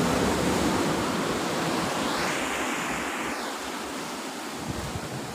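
Sea surf washing and breaking on the rocks below: a steady rushing that swells for a moment about two seconds in, then eases.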